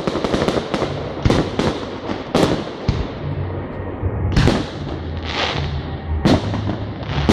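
Fireworks display: a quick string of crackling bangs in the first second, then single shell bursts every second or so, some followed by a fizzing hiss.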